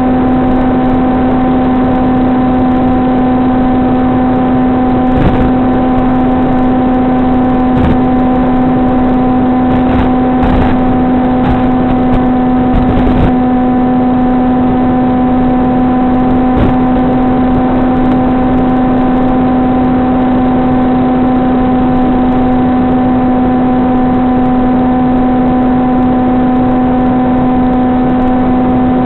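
Brushless SunnySky 2212 2450 kV motor driving an APC 6x5.5 propeller on an FPV flying wing, heard through the onboard camera's audio. It makes a steady buzzing whine at constant throttle over a rushing hiss of wind, with a few brief crackles.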